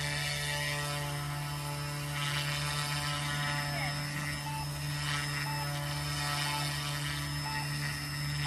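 Goosky S2 micro RC helicopter's electric motor and rotor blades spinning with a steady hum as it lifts off and hovers low. From about halfway, a short electronic beep sounds about once a second.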